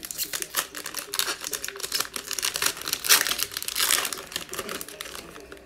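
Foil wrapper of an NBA Hoops trading card pack crinkling and tearing as it is pulled open by hand and the cards are slid out, a dense run of crackles that is loudest a little past halfway and thins out near the end.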